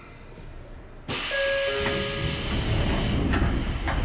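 Sudden loud hiss of compressed air from a Sotetsu 8000-series electric train standing at a station, starting about a second in and lasting a couple of seconds, with brief steady tones over it.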